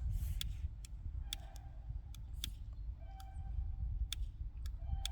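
Chickens fussing, giving short repeated squawking calls, over wind rumbling on the microphone, with a few sharp clicks scattered through.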